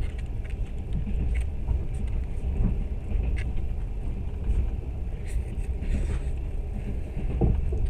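Passenger train running along the track, heard from inside the carriage: a steady low rumble with a few faint clicks scattered through it.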